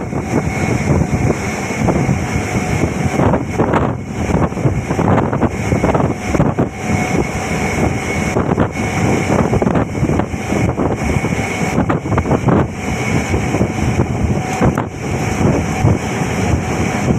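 Wind buffeting the microphone over the running noise of a moving vehicle, with a faint steady whine running through it.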